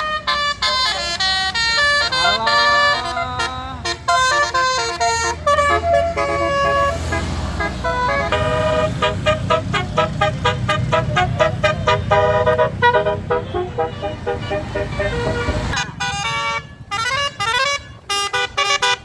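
Bus basuri horn, a multi-tone electric musical horn, playing a fast melody of quick stepped notes with a couple of rising swoops about two seconds in. A bus engine rumbles underneath through the middle and cuts off suddenly near the end.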